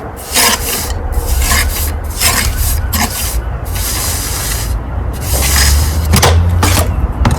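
Steel pointing striker scraping mortar off a hawk and pressing it into the brick bed joints, in a run of short, irregular scraping strokes with a pause in the middle.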